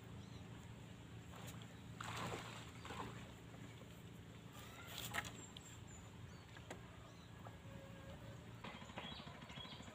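Faint steady hum of a distant motor. Over it come rustling and a sharp knock about five seconds in as bamboo poles are handled and set up.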